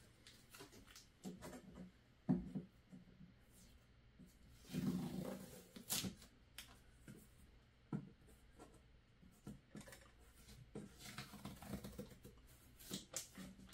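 Packaging being handled: scattered clicks, taps and short rustles of tape, plastic and cardboard as taped-on parts are worked loose from the printer, with the sharpest clicks about six and eight seconds in.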